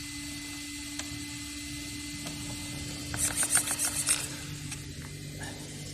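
Small electric cooling fan of the brushless RC setup running with a steady hum, which drops to a lower tone about four seconds in; a short burst of scratchy rubbing about three seconds in.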